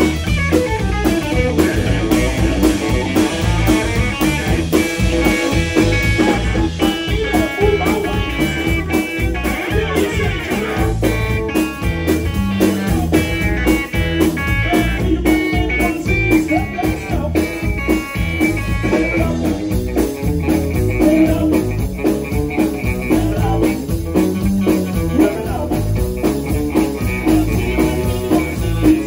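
A live rock and roll band playing: electric guitar over electric bass and a drum kit, with a steady driving beat.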